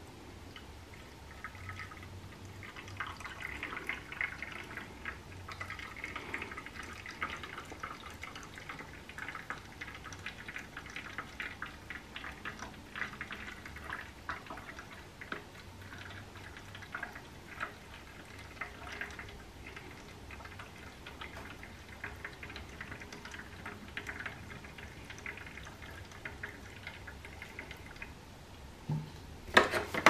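Water poured from a jug into the top water-and-soap drawer of a Casdon toy Hoover washing machine, trickling and dripping unevenly, as the toy is filled for a wash. Near the end come a few sharp plastic knocks as the machine's top is handled.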